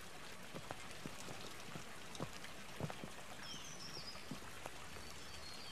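Quiet outdoor ambience: a faint steady hiss with scattered soft, irregular ticks, and a brief high chirp about three and a half seconds in.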